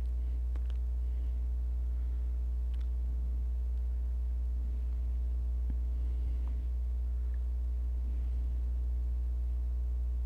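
Steady electrical mains hum with a stack of evenly spaced overtones, unchanging throughout, with a few faint clicks.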